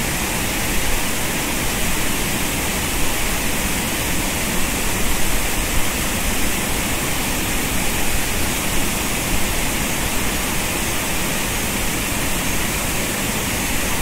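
Steady rushing of a mountain stream's water, an even hiss with no breaks.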